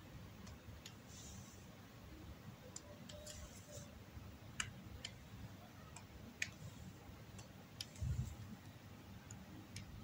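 Faint, irregular clicks of a stylus tip tapping on the screen of a Huion GT-190 pen display, with a soft low thump about eight seconds in.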